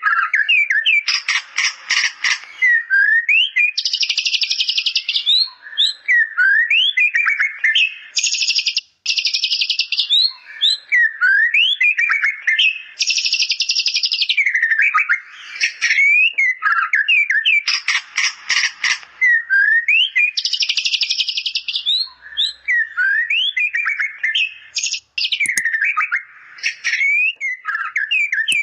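White-rumped shama singing a song filled with bar-winged prinia (ciblek) imitations: quick up-sweeping chirps alternate every few seconds with dense, buzzy rattling trills.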